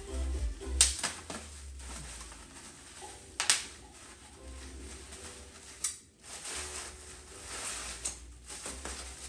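Plastic packing wrap rustling and crinkling as it is handled and pulled away, with several sharp crackles.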